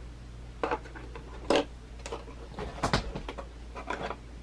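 Plastic board-game miniatures handled against a box's tray insert: a few short light clicks and knocks, the loudest near the middle and about three seconds in.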